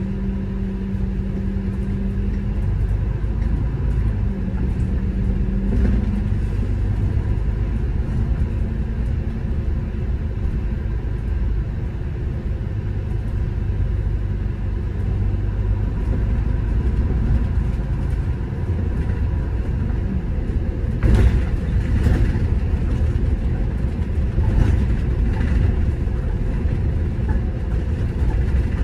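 City bus driving along: steady engine and road rumble, with a low hum in the first few seconds and a few sharp knocks and rattles about 21 seconds in.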